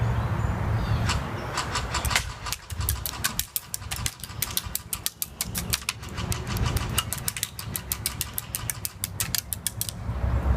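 Custom E&L AK-47 electric airsoft gun firing: rapid strings of sharp shots from its motor-driven gearbox, coming fastest near the end, over a steady low rumble.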